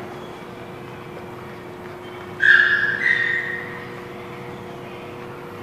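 A dog's high-pitched whine, about a second long, about two and a half seconds in, holding one note and then stepping up to a higher one, over a steady hum.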